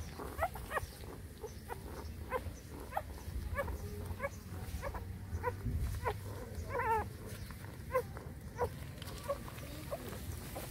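Nursing puppies squeaking and whining as they suckle: short high squeaks about once or twice a second, with one longer wavering whine about two-thirds of the way in.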